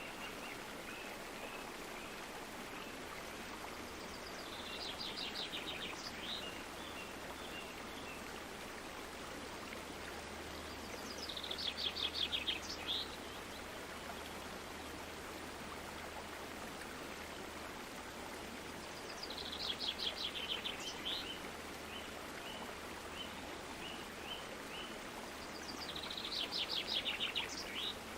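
Steady rush of a flowing stream, with a songbird singing the same short phrase four times, about every seven seconds: a fast run of repeated notes, then a few separate notes.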